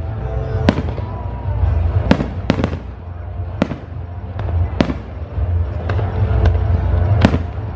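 Aerial fireworks bursting, with sharp bangs about once a second over a steady low rumble, set against the show's music soundtrack.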